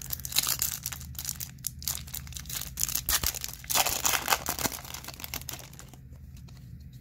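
Foil wrapper of a Topps Chrome baseball card pack being torn open and crinkled by hand: a dense crackling rustle that dies down about six seconds in.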